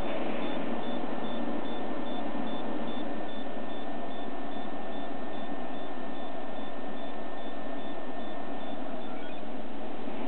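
Plasma globes running on homemade high-voltage supplies: a steady hiss with a faint steady high whine, and a faint high beep repeating about three times a second that stops near the end.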